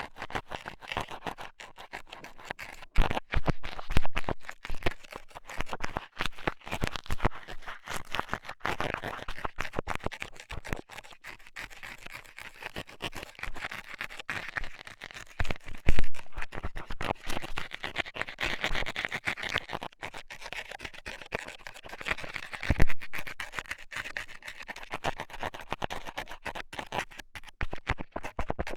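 A metal scaler scraping and poking inside an ear, heard up close as rapid, continuous scratching with a few louder knocks.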